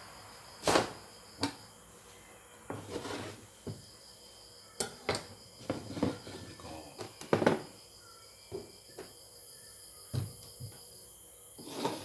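Scattered knocks and clatters of kitchen things being handled on a wooden table, the loudest about a second in and again about seven seconds in, over a faint steady high tone.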